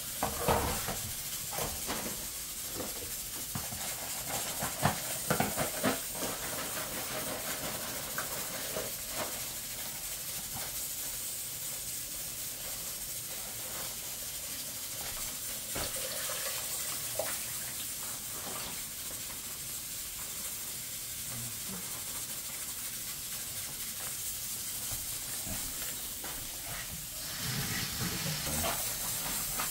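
Stovetop pressure cooker on a gas burner, hissing steam steadily, with a few knocks and clinks of pots and utensils in the first few seconds.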